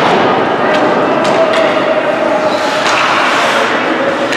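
Ice hockey play in a rink: a few sharp clacks of sticks and puck over a steady din.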